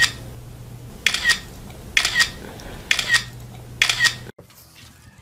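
Phone camera shutter sound, a sharp double click repeated five times about once a second as selfies are taken, over a faint steady hum. The clicks stop about four seconds in, and what follows is faint.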